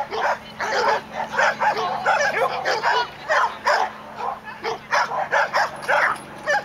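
A dog barking nonstop, a fast string of barks at about three a second.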